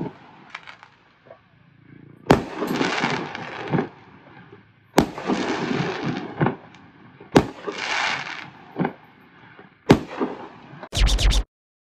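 Fireworks bursting overhead: four loud bangs a couple of seconds apart, each followed by a spell of crackling. The display ends with a quick string of cracks near the end, then the sound cuts off abruptly.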